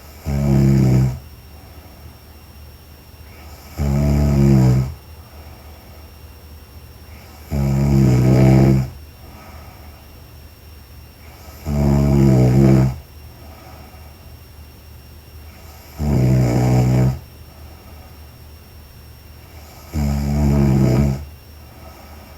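A sleeping woman snoring: six loud snores, each about a second long, coming about every four seconds.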